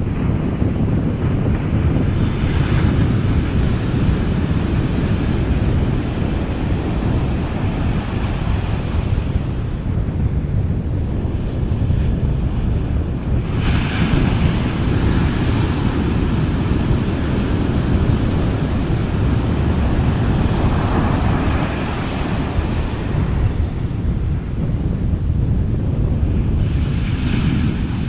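Sea waves breaking and washing up a beach, with four hissing washes spaced several seconds apart over a steady low rumble of surf and wind on the microphone.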